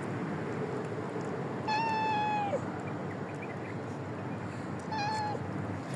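A cat meowing twice over steady background noise. The first is a longer meow about two seconds in that drops in pitch at its end; the second is a short meow about five seconds in.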